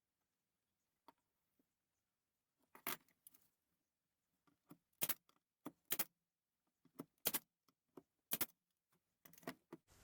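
A dozen or so short, sharp knocks and clicks at irregular intervals from hand tools and wood pieces being handled, with silence between them.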